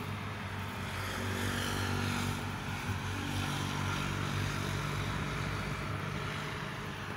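Steady engine drone with a low hum and a few higher tones that shift slightly in pitch through the middle.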